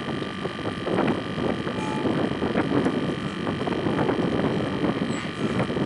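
Strong wind buffeting the microphone in gusts, with choppy water lapping against the boat.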